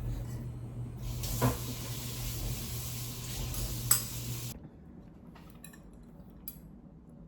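Kitchen noise: a hissing rush over a steady low hum, with two clinks of dishes, all of it stopping abruptly about four and a half seconds in.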